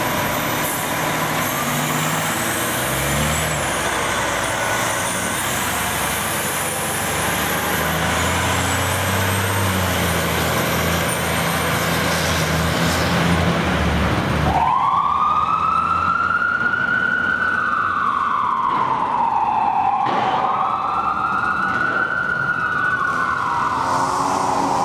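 Fire engine's diesel engine revving as it pulls away under a loud wash of noise; about fifteen seconds in the sound changes abruptly to a Whelen electronic siren wailing slowly up and down, and a steady air horn joins it near the end.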